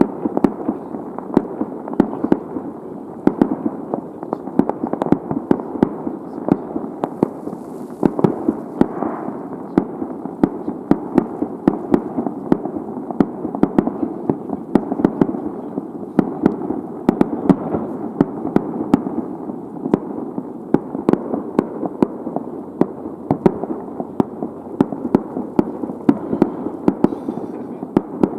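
Fireworks going off in a continuous rapid barrage: several sharp bangs a second over a dense, unbroken rumble of bursts.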